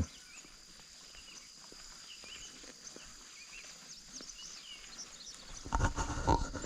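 Insects droning in steady high tones, with scattered short bird chirps over them. Near the end, footsteps and breathing come in louder.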